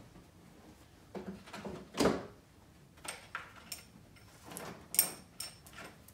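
The chain and guide bar of a Husqvarna 350 chainsaw being taken off. There is a series of knocks and metallic clinks from the chain links and bar, the loudest about two seconds in, and another sharp ringing clink about five seconds in.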